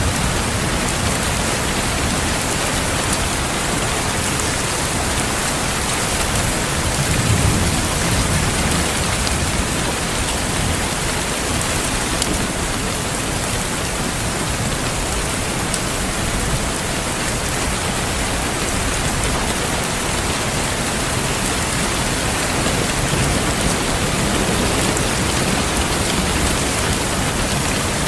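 Steady, heavy rain pouring down in an even hiss, with a low rumble of thunder swelling about seven seconds in.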